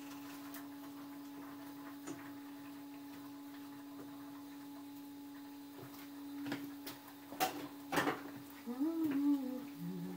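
Steady electric hum from a running kitchen appliance, with scattered knocks and clatter of pans and utensils being handled on the stove, the loudest a pair of sharp knocks past the middle. A short murmur of a voice near the end.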